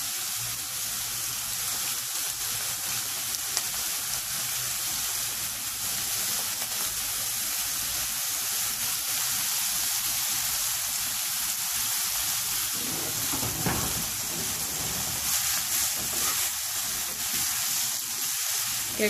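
Chicken strips, green chillies and capsicum sizzling in oil in a non-stick wok: a steady frying hiss.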